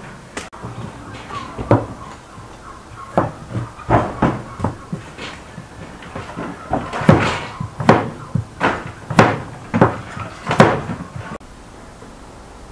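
A series of irregular hard knocks and clacks, roughly one a second, coming closer together and louder in the second half.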